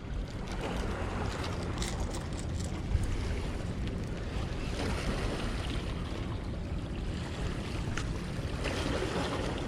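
Steady wind noise on the microphone over water washing against shoreline rocks, with a few faint ticks.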